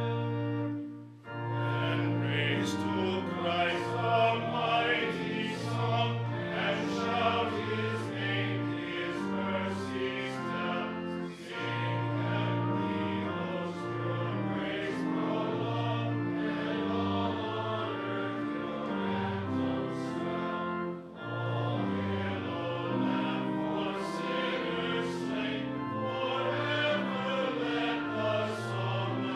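Congregation singing a hymn with instrumental accompaniment. There is a brief break between lines about a second in and again about twenty seconds in.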